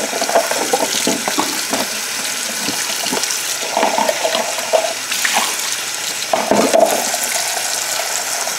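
Kitchen tap running steadily into a sink while a container is rinsed out under the stream. The splashing grows louder in spells: at the start, about four seconds in, and again about six and a half seconds in.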